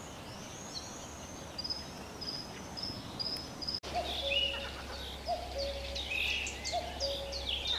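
Wild birds calling: a run of high, thin whistled notes, then, after a cut about four seconds in, a busier chorus of quick high chirps over a repeated lower note, with a faint low hum underneath.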